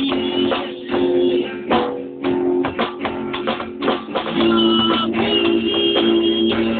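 Band music: guitar strummed in chords over sustained notes, with sharp percussive strokes throughout.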